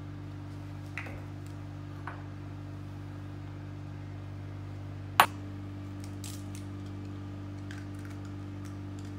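Handling sounds of glassware and ingredients on a stone kitchen counter: a few light clicks and taps, and one sharp knock about five seconds in, the loudest sound, over a steady low hum.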